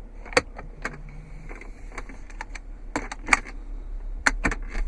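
A string of sharp, separate clicks and taps, about a dozen in a few seconds, over a faint steady low hum.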